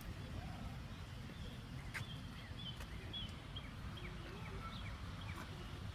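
Faint garden ambience: small birds chirping in short, high repeated notes through the middle, over a low steady rumble.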